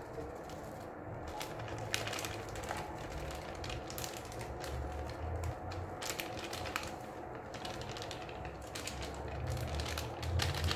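A small plastic packet of grated cheese crinkling and crackling as it is shaken and squeezed by hand, in irregular light clicks throughout.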